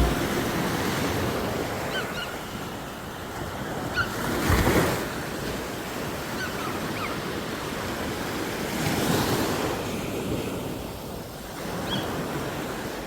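Sea waves washing onto a beach: a steady surf hiss that swells twice as waves break, about four seconds in and again about nine seconds in, with some wind on the microphone.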